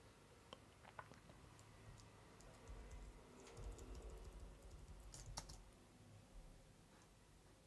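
Faint, scattered clicks of a computer keyboard and mouse over quiet room tone, with a small cluster of clicks about five seconds in.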